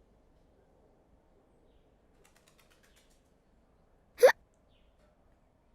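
A girl's voiced hiccup, a single short, sharp "hic!" that rises quickly in pitch, about four seconds in, after near silence.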